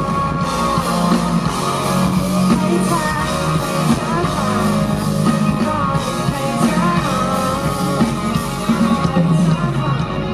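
Live rock band playing a song, with a singing voice over guitar and drums.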